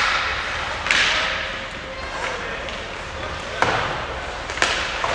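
Ice hockey play echoing in an arena: a loud stick-on-puck or puck-on-boards crack about a second in with a long echoing tail, then two sharper clacks near the end.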